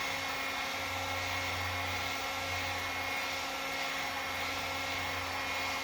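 Heat gun blowing steadily while it heats an acrylic sheet to soften it for forming.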